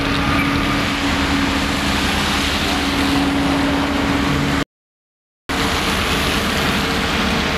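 Road rollers' diesel engines running with a steady hum as they compact fresh asphalt, with cars driving past on the wet road. The sound cuts out for under a second about halfway through.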